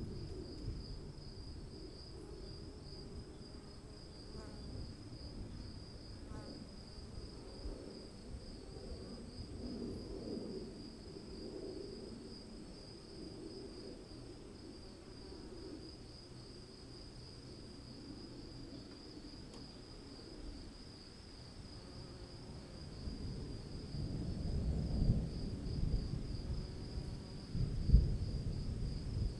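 Steady, shrill insect chorus, a fast pulsing trill that holds through. Low rumbling swells underneath in the last few seconds, with one sharp thump near the end.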